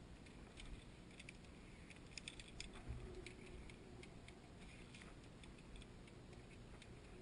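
Near silence, with faint scattered ticks and clicks, most of them about two to three seconds in.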